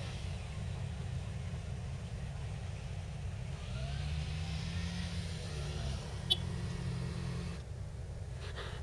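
Distant motorcycle engine running over a low rumble, its pitch rising as it revs up about three and a half seconds in. A single sharp click comes about six seconds in.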